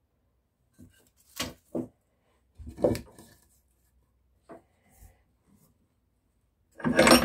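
Knocks and clunks of a metal rebate plane and cedar boards being handled on a wooden workbench, a few separate knocks followed by a louder, longer scrape or clunk near the end.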